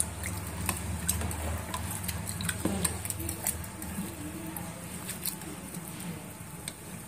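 Chicken biryani crackling softly in its pan on the stove: irregular light pops and ticks as the layered rice cooks, over a steady low hum.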